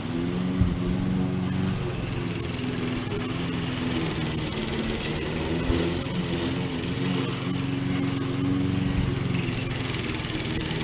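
Lawn mower engine running steadily under load while cutting grass, with a couple of brief knocks, one about half a second in and one near the middle.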